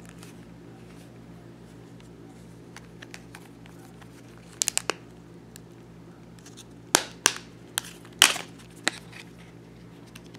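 Plastic clicks and snaps as the back cover of a ZTE flip phone is pried off and the battery is handled. A quick run of three clicks comes about halfway through, then a cluster of sharper snaps a couple of seconds later, over a faint steady hum.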